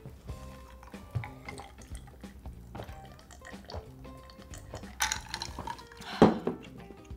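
Swallowing gulps of clear fizzy soda drunk from a glass, then a short hard knock about six seconds in as the glass is set down on the wooden table. Soft background music plays under it.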